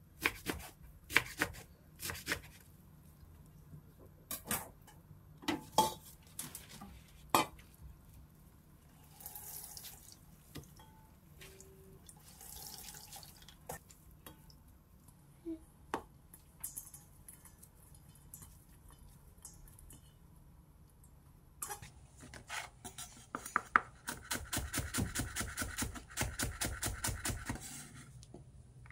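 A kitchen knife chopping on a bamboo cutting board: a few separate chops through leafy greens near the start, then a fast, even run of slicing strokes, about five a second, near the end as a green onion is cut. In between, wet greens are squeezed and tossed by hand in a stainless steel bowl with soft squelching and light clinks.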